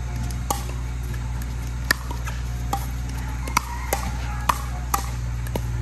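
A pickleball rally: about eight sharp pocks of the plastic ball coming off paddles at irregular spacing, closest together in the middle. A steady low hum runs underneath.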